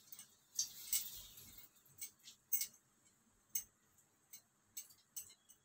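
Whole spices (bay leaf, cardamom, cloves, black peppercorns, cinnamon) dropped into hot oil in a metal kadhai: a faint brief sizzle about half a second in, then scattered light clicks and ticks.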